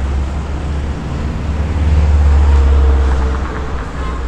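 Road traffic on a multi-lane city street, cars and motorbikes passing, with a steady low rumble. The rumble swells as a vehicle goes by about two seconds in, then eases off.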